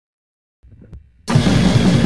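Silence, then a short low rumble, and about a second and a quarter in a hardcore punk band crashes in at full volume with drums and a dense, loud wall of sound.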